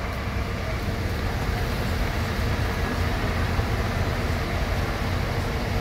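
Steady low engine rumble of a large intercity bus pulling away.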